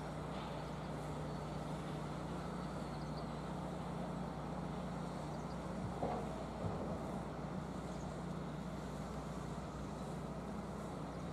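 Steady diesel engine hum of a Hitachi ZX200 hydraulic excavator and a crawler dumper working side by side, with two brief knocks a little past halfway.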